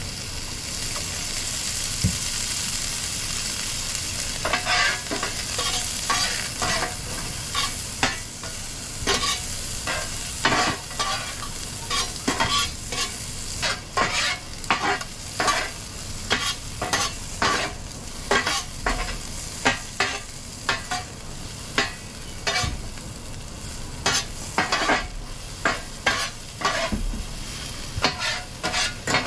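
Sliced onion rings sizzling on a flat-top griddle, with a spatula repeatedly scraping and tapping the griddle surface as they are stirred and turned. The scraping strokes start about four seconds in.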